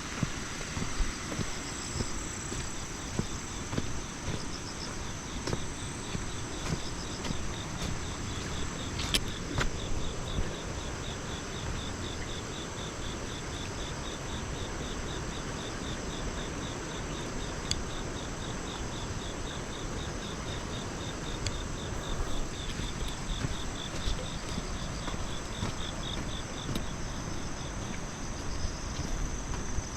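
Autumn crickets and other insects calling steadily, with a fast pulsing trill that sets in about three seconds in and fades near the end, over a steady low rumble.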